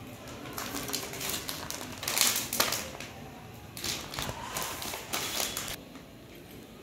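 Clear plastic clothing packets crinkling and rustling as they are handled, in irregular bursts, the loudest about two seconds in.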